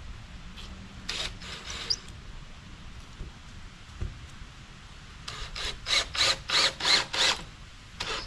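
Cordless drill driving screws into a plywood panel. There is one burst about a second in, then a run of short on-off pulses, about three a second, for two seconds, and one more short burst near the end.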